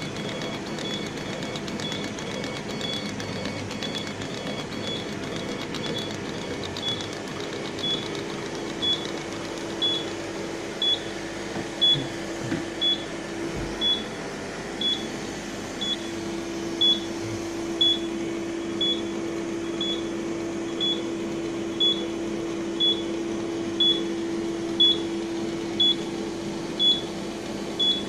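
OMTech 40W CO2 laser cutter running with a steady hum, while a short high-pitched electronic beep repeats about once a second.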